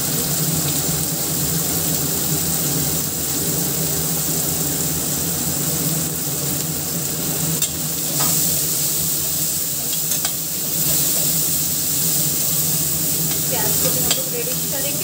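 Chopped onions sizzling in hot oil in a stainless steel kadhai as they fry, stirred with a metal spoon that clicks against the pan a few times.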